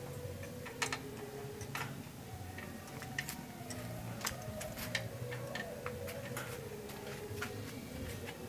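Irregular sharp metallic clicks and taps of hand tools and parts working at a motorcycle's rear wheel hub and brake plate.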